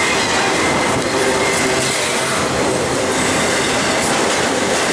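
BNSF double-stack container train's well cars rolling past close at speed: a loud, steady rush of wheels on rail, with a faint thin squeal running through it.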